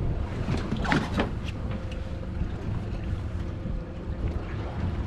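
A steady low rumble of a small boat at sea, with wind on the microphone and a faint steady hum. About a second in come a few sharp clicks and knocks as Dungeness crabs are handled.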